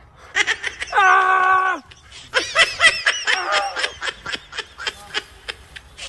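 A drawn-out cry that drops in pitch at its end, then a long run of quick laughter that tapers off.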